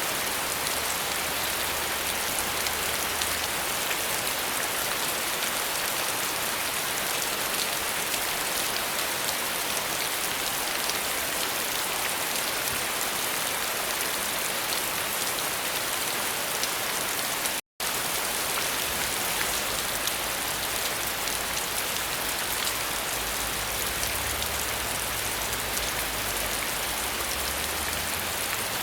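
Steady rain falling, a dense even hiss of drops on surfaces. About two-thirds of the way through, the sound cuts out completely for an instant, then resumes unchanged.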